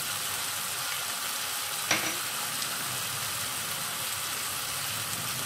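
Eggplant strips frying in hot oil in a kadai: a steady sizzle, with a single sharp click about two seconds in.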